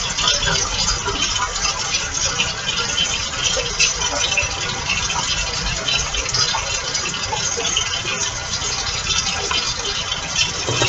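Frozen sweet and sour chicken frying in a skillet over medium-high heat: a steady, dense crackling sizzle.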